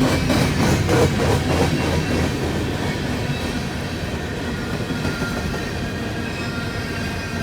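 BNSF freight train rolling past, its wheels clacking quickly over rail joints for the first couple of seconds, then a steady rumble.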